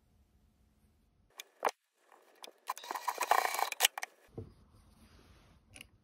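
Handling sounds at a sewing machine: a few sharp clicks and about a second of close rustling as a small folded fabric tag is positioned under the presser foot. The machine itself is not running.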